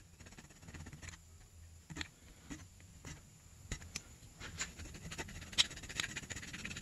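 Small hand file scraping the edge of a freshly drilled grease-fitting hole in a snowmobile spindle: faint, irregular strokes of metal on metal with sharp little clicks, scratchier in the second half.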